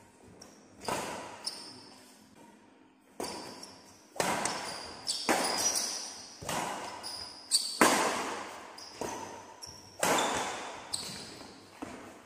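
Badminton rally in singles play: rackets striking the shuttlecock back and forth, sharp hits about once a second, each with a long echoing decay.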